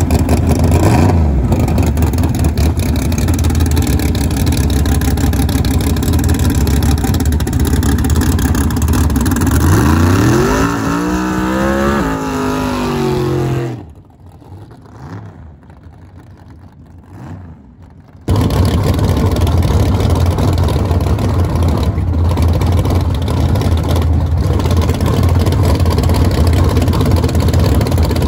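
Loud car engine running steadily, with the engine note climbing and then stepping back down about ten seconds in. The sound drops away sharply for a few seconds and then cuts back in suddenly.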